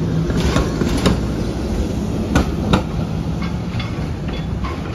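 SEPTA Kawasaki light-rail trolley's wheels knocking over the switches and crossings of a street-track junction. The knocks come irregularly, the two loudest close together about halfway through, over the low rumble of the car.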